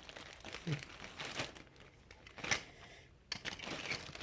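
Folded paper instruction sheets crinkling and rustling as they are handled and pulled out, in irregular bursts with a brief lull shortly after three seconds.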